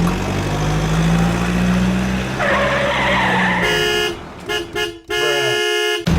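Car engine running steadily, with a hissing skid partway through, then a car horn tooting several times.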